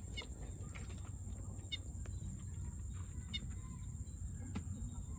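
Outdoor rural ambience: a bird giving short call notes about every second and a half over a steady high insect drone and a low rumble.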